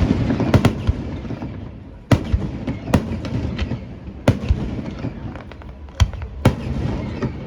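Fireworks shells bursting: about seven sharp booms at irregular intervals, two of them in a quick pair near the start, each followed by a rumbling echo.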